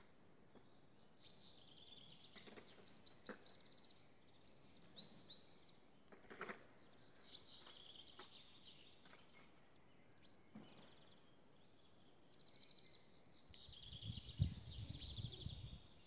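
Small songbirds singing and calling: high chirps and quick trills, with a low rumble coming in near the end.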